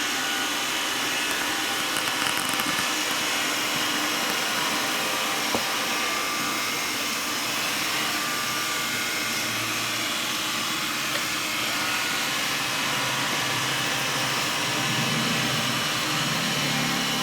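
Xiaomi Mi robot vacuum running steadily while it cleans the floor, a continuous even whirring hiss from its suction fan.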